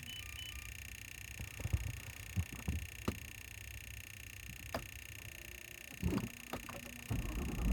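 Cabin sounds of a BMW F80 M3 being readied for a cold start: a couple of short electronic chime tones near the start and a handful of sharp clicks, over a faint steady high hum. Near the end a low sound rises as the S55 twin-turbo inline-six begins to crank and fire.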